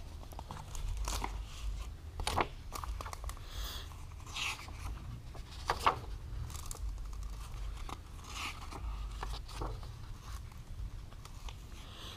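Paper instruction booklet being leafed through and unfolded: rustling and crinkling paper with scattered short clicks and handling knocks.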